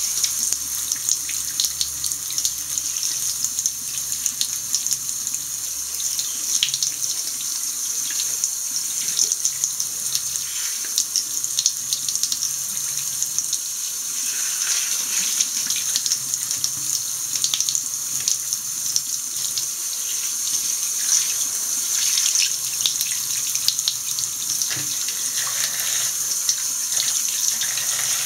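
Bathroom tap running steadily into a washbasin, the stream splashing over a burnt shoe as hands rinse and turn it, with scattered small knocks and clicks throughout.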